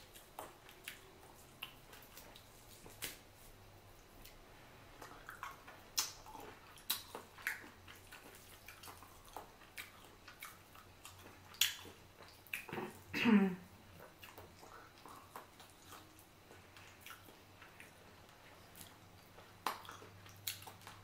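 Wet chewing and lip-smacking of someone eating hand-pulled boiled chicken: a scatter of soft clicks and smacks. A brief hummed 'mmm' comes about thirteen seconds in.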